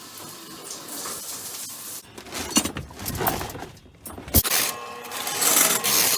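Water running from a tap, a steady hiss that grows louder and harsher near the end, with a few sharp knocks and clatters in the middle.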